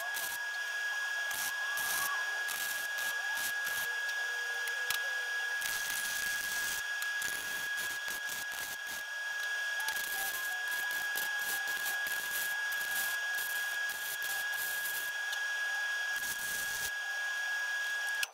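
Electric arc welding on the steel tubing of an antique bed headboard frame: a continuous crackling sizzle from the arc, with a thin steady high tone beneath it. Both stop abruptly at the very end.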